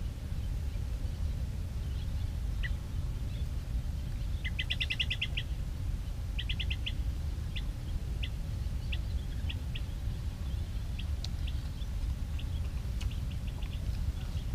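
Wild birds chirping in the mangrove: a quick run of short high notes about four seconds in, a second run shortly after, then scattered single chirps. A steady low rumble runs underneath.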